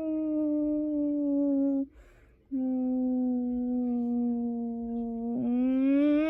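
A long, siren-like wail from a single voice copying an air raid siren: a steady tone that slowly sinks in pitch. It breaks off for a short breath about two seconds in, resumes lower, and begins to rise again near the end.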